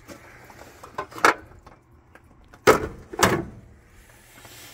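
A few short knocks or thumps, two small ones about a second in and the two loudest close together about three seconds in.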